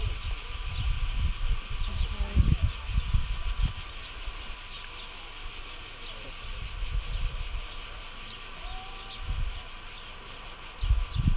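Dense, steady chorus of cicadas, a high-pitched rapid buzzing that never lets up. Wind buffets the microphone in low rumbling gusts during the first few seconds and again near the end.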